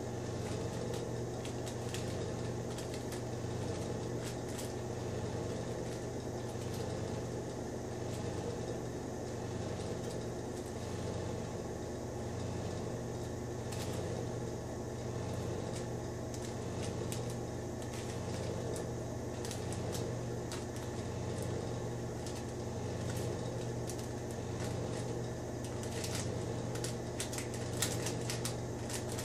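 A steady low mechanical hum with a slow, even pulse, under light crinkling and clicking of parchment paper as its edge is folded and pressed shut by hand.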